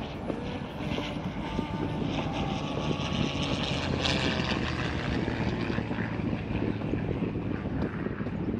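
Diesel-hauled passenger train on the move: a steady running rumble with frequent clicks and clatter.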